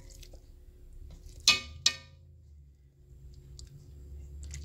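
Metal tongs clink twice in quick succession against a blue enamelled cast-iron Dutch oven, each strike short and ringing. A low steady hum sits underneath.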